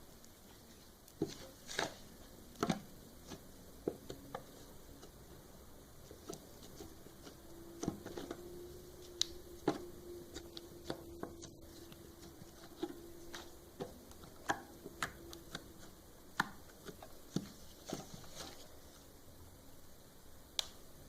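Slime being squeezed and poked by hand, giving irregular sticky clicks and small pops, a few at a time. A faint steady low hum runs underneath through the middle for several seconds.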